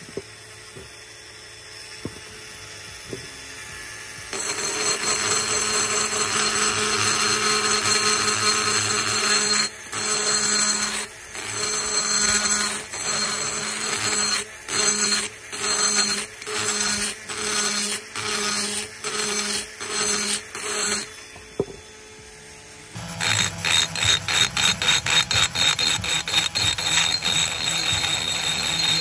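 Cordless brushless rotary tool spinning a carbide burr against the port of a Predator 212's aluminium cylinder head, a steady grinding whine. From about a third of the way in the whine breaks off briefly again and again at a steady pace, a little over once a second. After a short lull near the end it pulses rapidly, about four times a second.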